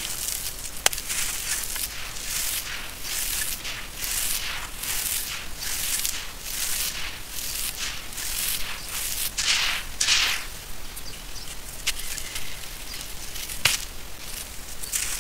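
Hands crumbling and squeezing dry sand-cement lumps, grit and powder crunching and pouring in repeated short gritty swishes about twice a second, the loudest about two-thirds of the way through. Two sharp cracks, one about a second in and one near the end.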